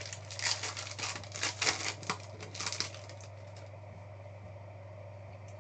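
Foil wrapper of a trading-card pack crinkling and tearing open in a run of crackly rustles over the first three seconds or so. After that there is only a low steady hum.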